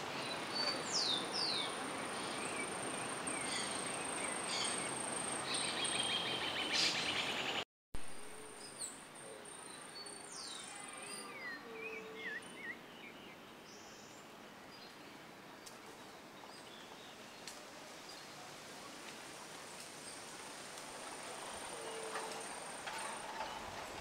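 Forest ambience with birds chirping in quick sweeping notes over a thin, steady high tone. A brief dropout about eight seconds in, after which the birds are sparser and the background quieter.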